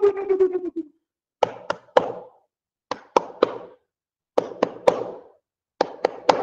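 Sharp percussive knocks in four groups of three quick strikes, the groups about a second and a half apart, each strike ringing briefly.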